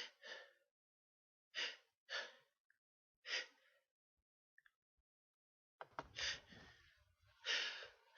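A person sneezing in a rapid series of short, breathy sneezes: five in the first three and a half seconds, then two more near the end.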